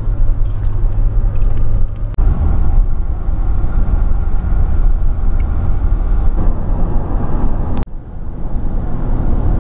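Car driving at road speed, heard from inside the cabin: a steady, loud low rumble of road and engine noise, changing abruptly about two seconds in and again near the end where short clips are cut together.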